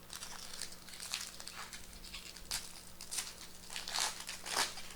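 Trading-card pack wrappers crinkling and cards being handled: a run of short, irregular rustles, the loudest a few seconds in.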